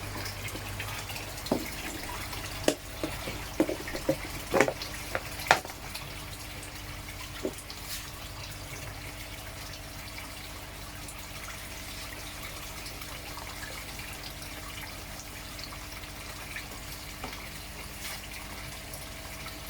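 Pond water splashing and trickling steadily, with a handful of sharp knocks and clicks in the first several seconds.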